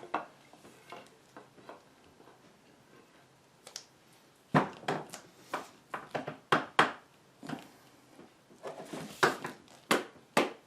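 Irregular knocks, some in quick pairs, as a new wooden adze handle is pounded to seat the metal head on it. The first four seconds or so are fairly quiet, and the knocking starts about halfway in.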